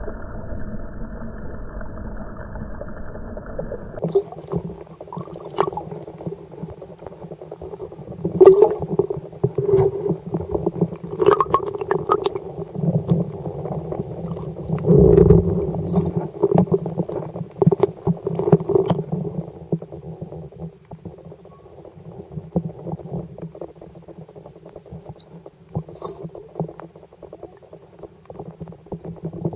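Muffled, underwater-sounding water: a low churning gurgle scattered with clicks and pops. A duller, steadier rumble gives way to it about four seconds in, and it swells louder through the middle before easing off.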